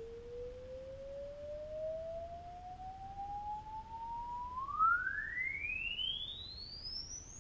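A pure sine-wave test tone played through computer speakers, sweeping upward in pitch. It rises slowly from a low-mid tone, then about two-thirds of the way in climbs much faster toward a very high whistle. It is picked up by a GoPro Hero 3 sealed in its waterproof housing.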